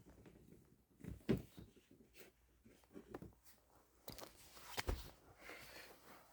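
Faint, scattered clicks and knocks of cords and plugs being handled and searched through.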